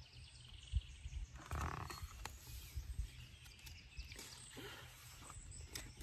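A picture book being handled: soft rustling and a few low bumps, over faint outdoor background noise.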